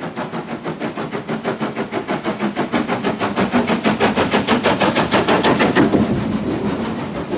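Steam locomotive working hard, its exhaust beats coming in a rapid, even rhythm of about five or six a second. The beats grow louder to a peak about six seconds in as it draws close, then ease off slightly.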